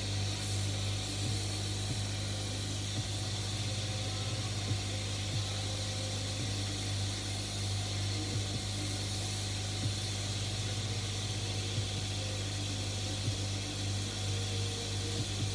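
A steady low electrical hum with an even hiss, with faint clicks now and then.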